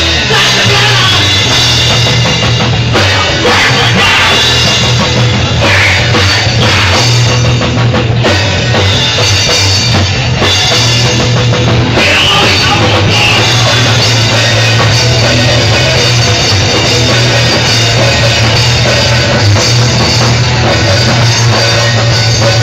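Live rock band playing very loud, drum kit and amplified instruments in a dense, unbroken wall of sound.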